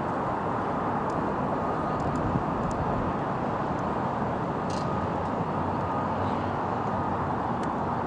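Steady outdoor background noise, a dense even rumble without speech, with one faint sharp click a little under five seconds in.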